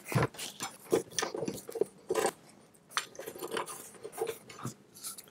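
Irregular light clicks, clinks and knocks from handling the CR-10's spool holder bracket and thumb screws while fitting them onto the printer's control box.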